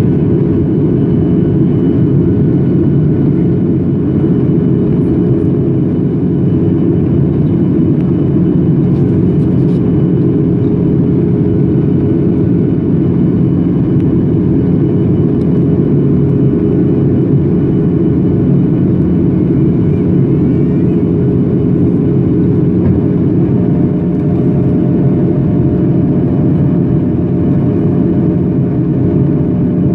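Steady cabin noise of a Boeing 737 jet airliner in flight, the rush of its engines and airflow heard from a window seat over the wing, loud and unbroken, with a low hum running through it. About two-thirds of the way through, a higher steady hum joins in. The aircraft is descending toward landing.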